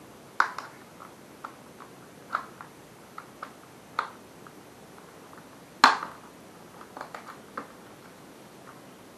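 Plastic back cover of an Advan Vandroid E1C Pro phone being pried off with a plastic opening pick: a string of sharp clicks as the cover's clips snap loose, the loudest about six seconds in.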